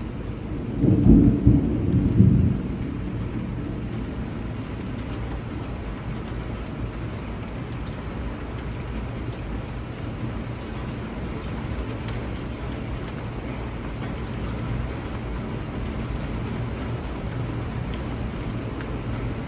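Steady heavy rain with one loud, deep clap of thunder about a second in that rolls for a second or two, then the rain carries on evenly.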